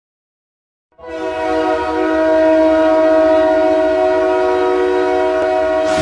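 Wichita Thunder ice hockey goal horn sounding one long, steady blast of several tones held together, starting about a second in.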